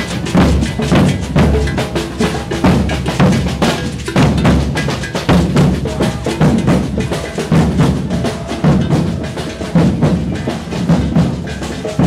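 A maracatu de baque virado percussion group drumming a dense, continuous rhythm. The deep beats of alfaias, large rope-tuned wooden bass drums beaten with sticks, sound under sharper, quicker drum strokes.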